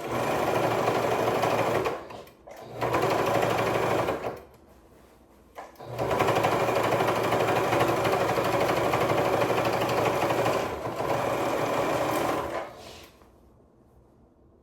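Sewing machine stitching in three runs: two short runs of about two seconds each, then a longer run of about seven seconds that stops near the end.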